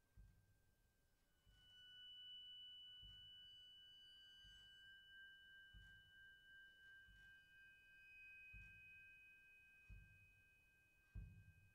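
Very quiet, pure high ringing tones of small metal percussion, several pitches held together, the upper ones coming in about a second and a half in. Under them, soft low thuds fall roughly every one and a half seconds.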